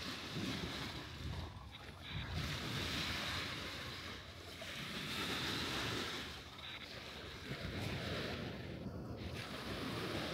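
Surf washing onto a sandy beach, swelling and falling back every few seconds, with wind rumbling on the microphone.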